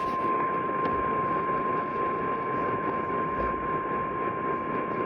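Emergency Alert System attention tone heard over an AM radio broadcast: a single steady high tone, held without a break, over even radio static.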